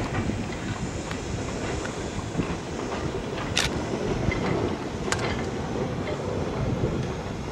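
SNCF 140 C 231 steam locomotive, a 2-8-0 Consolidation, working a train of coaches past. Its exhaust and running gear make a steady rumble, with a few sharp clicks partway through.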